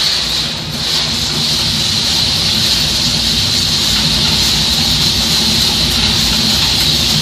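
Snack frying line machinery running steadily, with a hiss-like rattle as fried rice crackers pour off a conveyor into a stainless-steel hopper.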